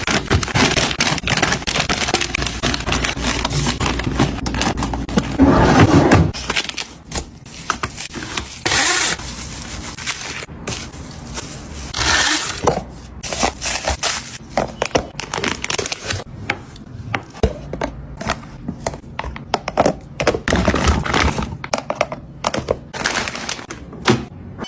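Food packages and containers being handled and set into a refrigerator: about six seconds of dense rustling, scraping and clatter, then scattered knocks and clicks of items being put down.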